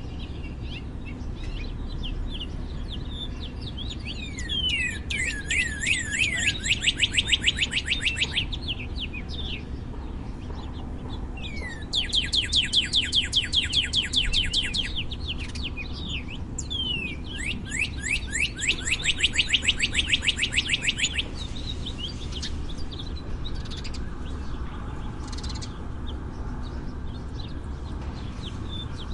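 Northern cardinal singing: three phrases of rapid, evenly repeated down-slurred whistles, each a few seconds long, with scattered single notes in between. A steady low background noise lies under the song.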